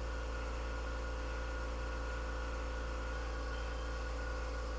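Gas torch flame burning steadily, a constant low rushing noise, as it heats an alligator clip's stem inside a brass ring terminal to solder the joint.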